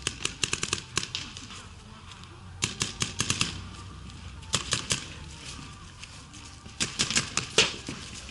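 Paintball markers firing in quick strings of sharp pops, four bursts of about a second each.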